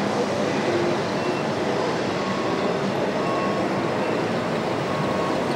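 Steady, even din of a busy exhibition hall: crowd and machinery noise blended into one reverberant wash, with no single sound standing out.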